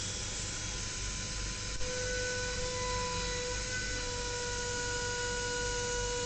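CNC machine milling 10 mm aluminium: a steady spindle whine with a few held tones over a constant hiss, with one light click about two seconds in.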